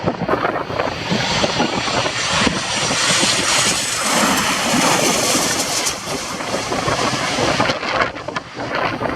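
Boeing 737-800's CFM56 jet engines going past, a wide rushing noise that swells to a peak midway and then eases off, with wind buffeting the microphone.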